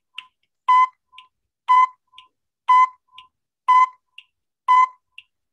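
Quiz countdown timer beeping once a second, each beep short and high-pitched, with a much fainter blip halfway between beeps, counting down the seconds left to answer.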